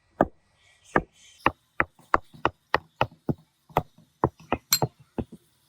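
A rapid series of sharp knocks or chops, about three a second and slightly uneven, around fifteen strikes in all.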